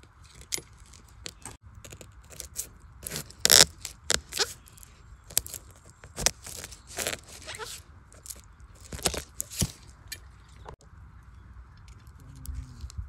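Large knife blade cutting and scraping through soil and the tough base of a bamboo shoot being dug out: an uneven string of crunching scrapes and sharp cuts, the loudest about three and a half seconds in.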